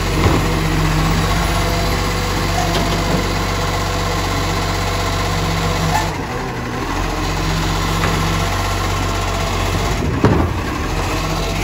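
Iveco side-loader garbage truck's diesel engine running steadily while its automated arm lifts a wheelie bin, empties it into the body and lowers it back to the kerb. A sharp clunk about ten seconds in.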